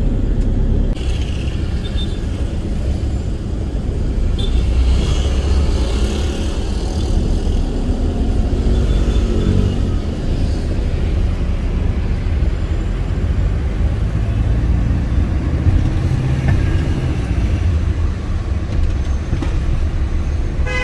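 Steady low rumble of a camper van's engine and tyres, heard from inside the cab as it moves slowly in dense city traffic.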